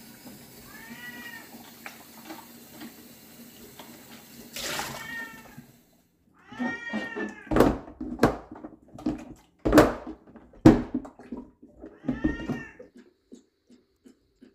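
A domestic cat meowing repeatedly, about four drawn-out meows. A kitchen tap runs into the sink for the first six seconds, and in the middle come four sharp plastic knocks as a water bottle is seated on a pet water dispenser.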